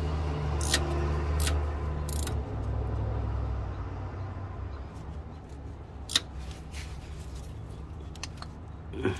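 About half a dozen short metallic clicks, spread out, from a wrench on the mounting bolt of a Nissan Pathfinder R51's rear ABS wheel speed sensor as the bolt is tightened. Under them is a low rumble that fades after the first two or three seconds.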